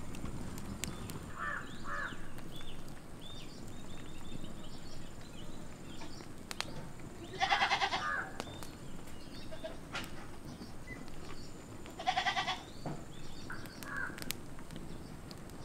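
A goat bleating twice, each a wavering call under a second long, about four seconds apart. Under it a wood fire crackles with sharp pops, and small birds chirp.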